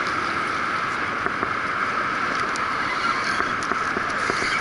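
Steady rush of fast, churning river water below a dam, with a few faint clicks.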